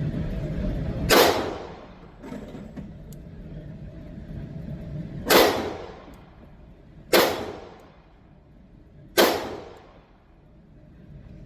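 Four single shots from a MAC 9 DS 9mm pistol, each a sharp crack with a short echoing decay. The first comes about a second in, then after a pause of about four seconds three more follow roughly two seconds apart.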